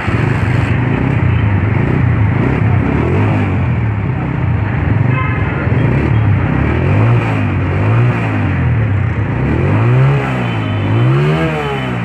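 United 125 motorcycle's single-cylinder four-stroke engine running, the throttle blipped so the revs rise and fall again and again, the last few blips the highest.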